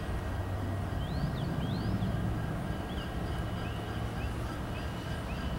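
CSX six-axle diesel locomotive rumbling low and steady as it moves at a crawl, with short bird chirps several times over it.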